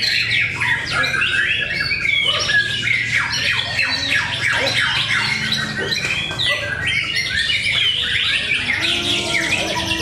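White-rumped shamas (murai batu) singing all at once, a dense, unbroken chorus of overlapping whistles, fast trills and chattering calls. The birds are singing against one another in a song contest.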